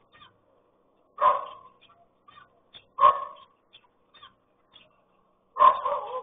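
A dog barking in single loud barks about two seconds apart, then a quick run of two or three barks near the end.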